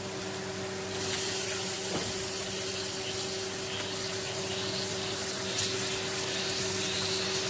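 Spice paste (masala) sizzling in an aluminium pan as raw catla fish pieces are laid into it. The sizzle grows louder about a second in, over a steady low hum.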